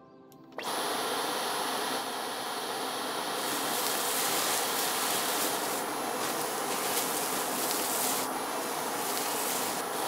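Dyson V11 cordless stick vacuum switched on by its trigger about half a second in, then running steadily: a dense motor and suction rush with a thin, high, steady whine. Its upper hiss swells and eases a few times as the motorised cleaner head is pushed over hard floor and carpet.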